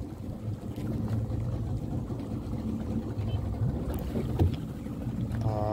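Boat's outboard motor running steadily with a low hum. About four seconds in, an orange float dropped overboard splashes into the water.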